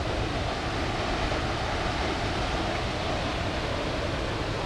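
Steady rushing noise of a large waterfall, the Lower Düden Falls, pouring off a cliff into the sea.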